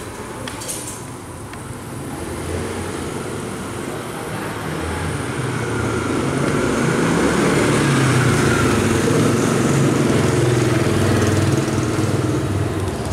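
Motorcycle engine running close by, growing louder over several seconds, staying loud through the middle, then easing off near the end.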